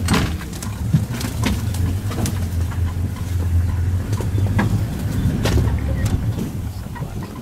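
Safari vehicle's engine running with a low steady hum, with irregular knocks and rattles over it. The hum fades near the end.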